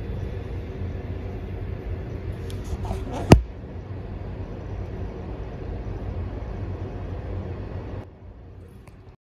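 Steady low background rumble, with a single sharp click about three seconds in; it turns fainter near the end.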